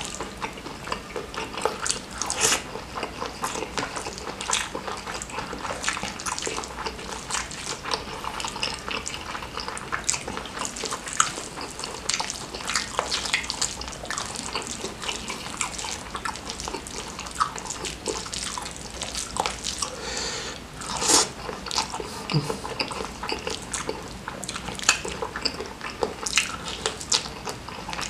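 Close-miked wet chewing and lip-smacking, with sticky squelches of fingers scooping sauce-soaked squid and rice, as a mouthful of spicy stir-fried squid is eaten by hand. The small wet clicks come thick and steady throughout.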